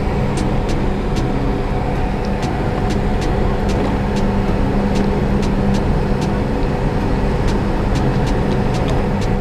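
A steady engine drone, a constant low hum with a strong even tone, overlaid by sharp light ticks about two or three times a second.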